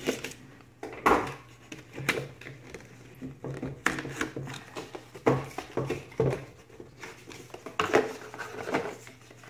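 A knife slitting the seal stickers on a GoPro box, then the cardboard sleeve and hard plastic case scraping and clacking as they are worked apart, in irregular sharp clicks and rustles. A faint steady low hum runs underneath.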